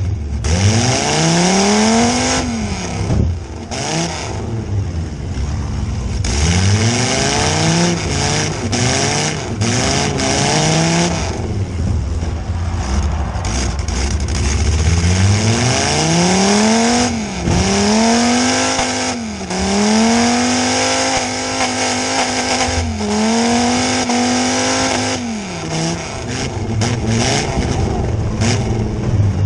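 Demolition derby truck's engine with open headers, heard from inside the cab. It is revved up and down in repeated rising sweeps, then held flat out at redline for several seconds past the middle, dipping briefly once.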